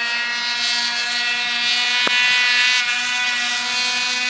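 Snowmobile engine running at steady revs, holding one even pitch, with a single sharp click about two seconds in.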